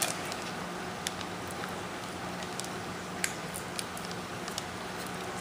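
A few sharp clicks and snips as steel bone cutters work at the knot of a plastic coral frag bag, over a steady background hum.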